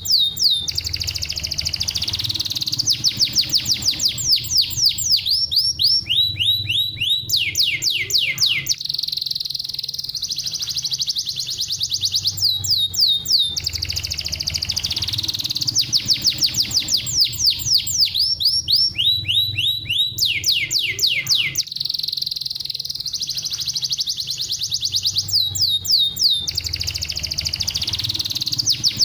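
Domestic canary singing a long, continuous song: fast trills of repeated downward-sweeping notes, alternating with a rolling high warble, over a faint steady low hum.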